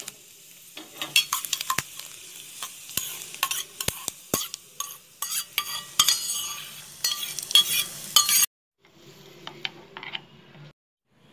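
Coconut pieces and sesame seeds sizzling in hot ghee in a steel pan, with a spoon clinking and scraping against the pan as they are tipped out. After a brief break, a spoon stirs them into thick rice batter with softer scrapes and taps.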